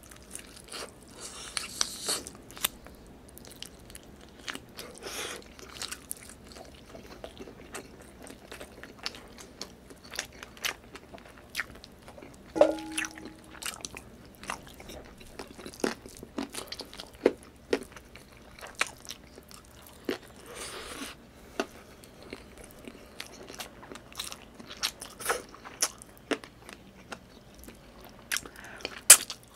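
Close-miked eating: chewing, lip smacks and biting into chicken adobo and rice eaten by hand, with irregular wet clicks and crunches throughout. A brief hum-like tone sounds about halfway through.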